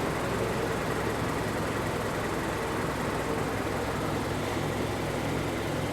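Hyundai Sonata's LPG (LPI) engine idling with the air conditioning on and the electric radiator cooling fan running, making a steady hum and whir. The AC pressure is falling, so the fan's drive voltage is dropping from high speed toward low.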